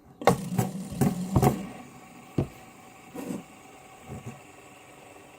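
Fidget spinners being handled: several sharp clicks and knocks with a low whirring buzz in the first second and a half, then a few single knocks spread out after it.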